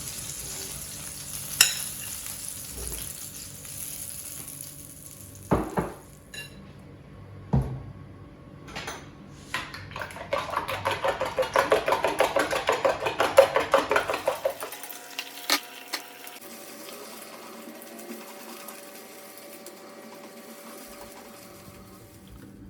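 Food sizzling in a pot at first, with a few sharp knocks of a utensil against it. Then about four seconds of quick, rhythmic stirring, the spoon clattering against the pot, after which it goes quieter.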